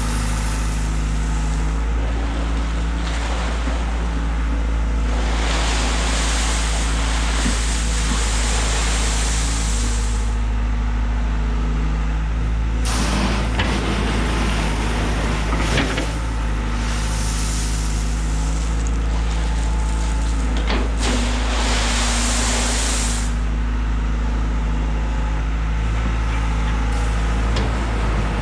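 Earth-moving machine's engine running steadily while spreading crushed stone, with several spells of louder rushing, grinding noise as the stone is pushed and moved.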